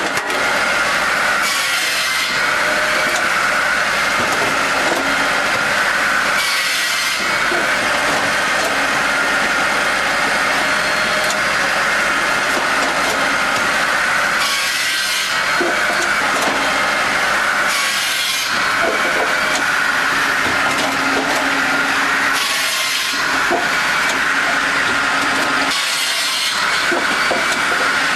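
Firewood processor's saw cutting through logs: a continuous, loud sawing and grinding of wood, with a brighter rasping surge every few seconds.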